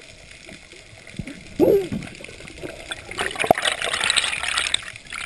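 Water splashing and gurgling, with a brief louder gurgle about one and a half seconds in and a denser rush of water in the second half.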